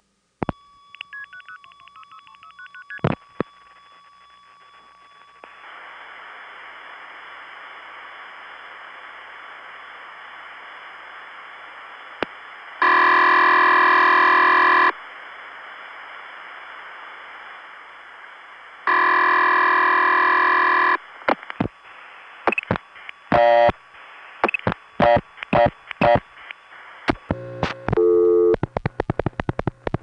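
Telephone line audio of a 1970s long-distance call: clicks as the call is switched through, steady line tones and hiss, then two two-second bursts of ringback tone about six seconds apart, followed by a rapid run of clicks and short tone bursts.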